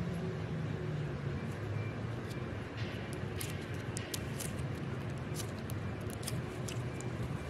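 Pink glitter slime squished and stretched between fingers, giving scattered small sticky clicks and pops, over a steady low background hum.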